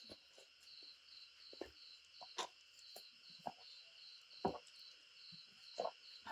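Faint, rhythmic chirping of crickets in the background, with scattered soft clicks and smacks of someone eating.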